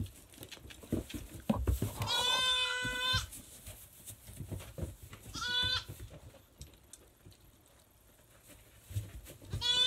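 Goat bleating: a long wavering bleat about two seconds in, a shorter one about halfway through, and another starting just at the end, with faint knocks and rustles between.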